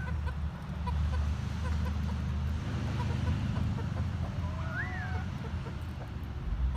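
Frizzle chickens, a hen with her half-grown chicks: one short call that rises and then falls, about five seconds in, and faint scattered clucks, over a steady low rumble.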